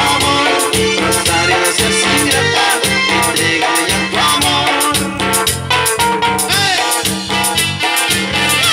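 A live dance band playing Latin dance music, with keyboard and electric guitar amplified through PA speakers over a steady pulsing bass beat and fast, busy percussion.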